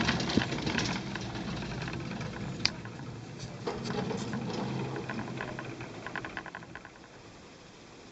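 Single-seat chairlift running: rapid clicking and rattling of the chair and haul rope just after passing a lift tower, with one sharp click about two and a half seconds in, dying away to a quiet hiss near the end.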